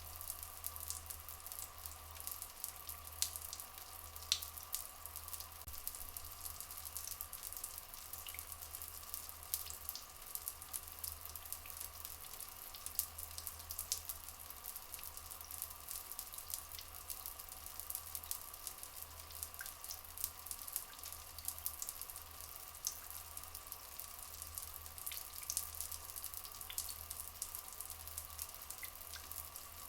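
Rainforest ambience: steady flowing water with many small drips and crackles, and a few brief faint bird chirps scattered through it.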